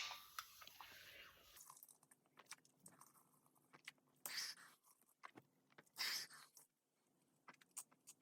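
Sparkling water fizzing, its hiss fading away over the first second and a half, then mouth sounds of gulping and swallowing twice, about four and six seconds in, with faint clicks between.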